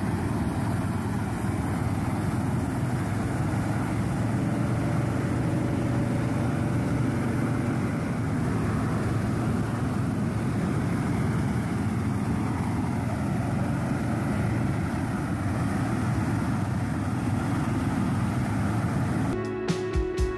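A John Deere tractor pulling a propane flame weeder, its row of burner jets giving a continuous rush with the tractor engine running under it. About a second before the end it cuts to music with a beat.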